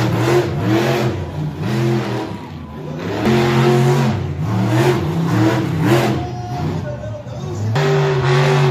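Engine of a big-tyred off-road mega truck revving hard over and over, its pitch surging up and dropping back in quick succession, with a few held steady stretches.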